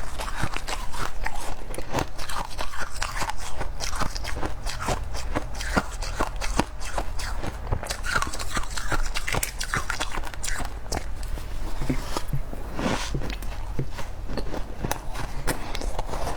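Freezer frost being bitten and chewed close to the microphone: dense, rapid, irregular crunching.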